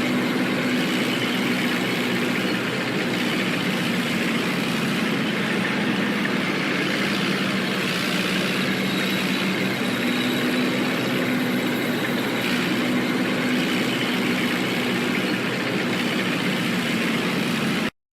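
Tank engine running steadily, with a constant low hum, cut off abruptly near the end.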